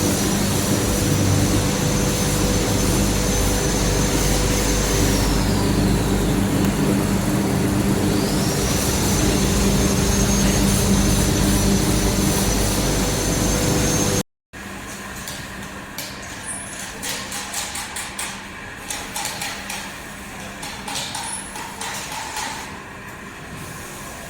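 Steady drone of workshop machinery with a high whine that slides down and then climbs back up. After a sudden cut it turns to a quieter run of clicking and rattling.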